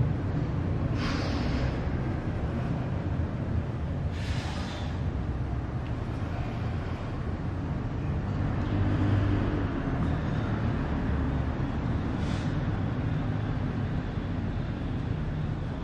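A man's sharp breaths, three of them: about a second in, at about four seconds, and near twelve seconds. Under them runs a steady low rumble.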